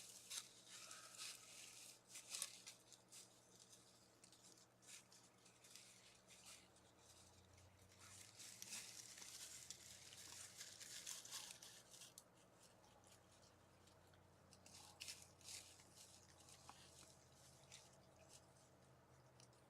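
Faint scratching, rustling and crackling in irregular bursts, as of an animal moving or foraging near the microphone, over a steady low hum.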